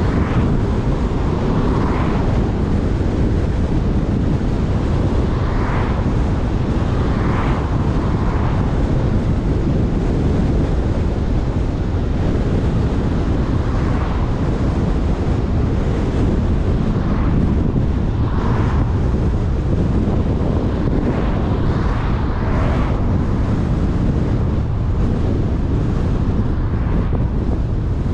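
Car driving along a town road: a steady rumble of road and tyre noise, with wind buffeting the microphone. A few brief whooshes rise out of it, one just at the start as an oncoming car passes.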